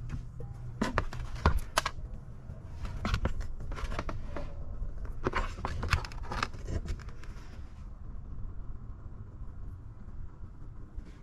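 Scattered knocks and clinks of metal parts being handled while a car's rear differential is inspected, in clusters with pauses between, over a low steady hum.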